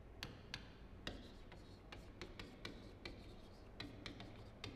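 Chalk writing on a chalkboard: a string of irregular light taps and clicks as the letters are formed, about a dozen in all.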